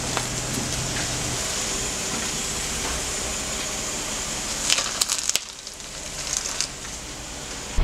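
Car tyre crushing vegetables: a steady crackling hiss, then a burst of sharp crunches about five seconds in as it squashes an ear of corn in its husk, followed by a few fainter cracks.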